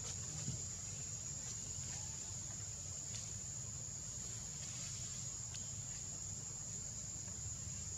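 Insects keeping up one steady high-pitched drone over a low steady rumble, with a few faint clicks.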